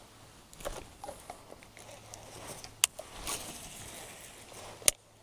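Handling noise of casting and reeling a baitcasting rod: scattered clicks and rustles, with one sharp click about three seconds in and another near the end.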